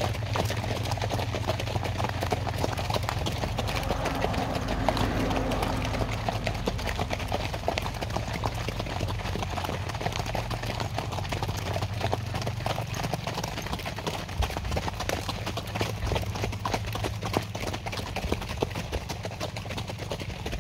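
Hooves of a string of ridden horses clip-clopping on an asphalt path: many overlapping, irregular hoof strikes as the line of horses passes.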